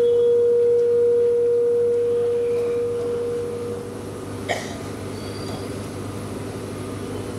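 Public-address system ringing with a loud, steady, single-pitched feedback tone that fades away about four seconds in. A sharp click follows, then a low hum from the sound system, a sign of a microphone or PA fault being dealt with.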